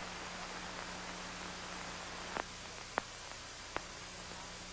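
Steady hiss and low hum of an old film soundtrack with no speech or music, broken by three short clicks between about two and four seconds in.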